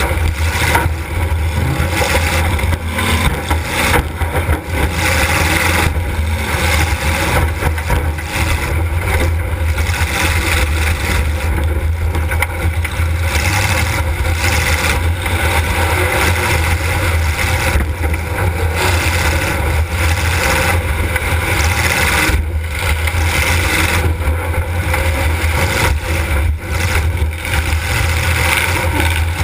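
Demolition derby car's engine running loud and steady for the whole stretch, heard from inside the car, with a heavy low rumble and dense noise over it.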